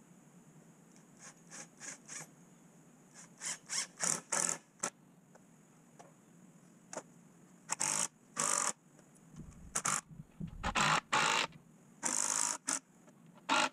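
Cordless drill driving lag bolts into a wooden stair rail in short pulls of the trigger, each run a second or less with pauses between, the runs longer and louder in the second half.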